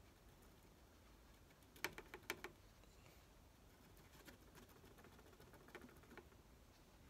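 Small clicks and taps of a glue tube's nozzle dabbing glue dots onto a thin wooden model wall frame. A quick cluster of four or five taps comes about two seconds in, then a few faint single ticks, over near silence.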